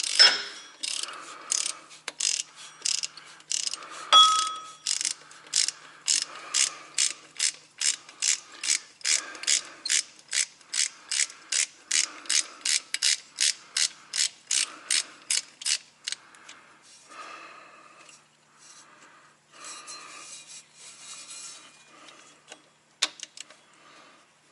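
Ratchet wrench clicking as it works the rusted mounting bolts of a truck's A/C compressor, an even run of strokes about three a second that stops about two-thirds of the way through. A ringing metal clink comes at the start and again about four seconds in, and quieter tool-handling sounds follow the ratcheting.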